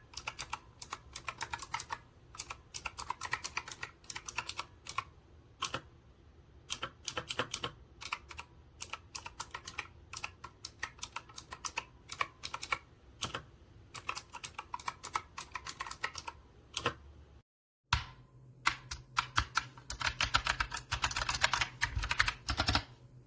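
Razer Huntsman Mini 60% keyboard with clicky optical switches being typed on: an irregular run of sharp key clicks. The sound cuts out briefly about seventeen seconds in, then comes back as faster, denser typing near the end.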